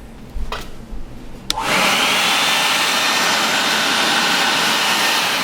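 Craftsman 2.5-gallon 1.75 peak HP wet/dry vac: a click, then about a second and a half in its motor starts and runs steadily, a high whine over rushing air.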